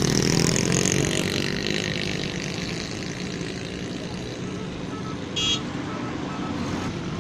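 Road traffic: a motorcycle engine passes close, loudest at the start and fading over the first two seconds, then steady traffic noise from passing cars and motorcycles. A short horn toot sounds about five seconds in.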